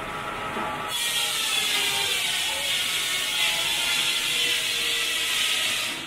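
Vintage belt-driven sawmill saw, powered by a steam traction engine, cutting through timber: a steady high rasping that starts about a second in and stops abruptly at the end, over the steady tones of the running mill.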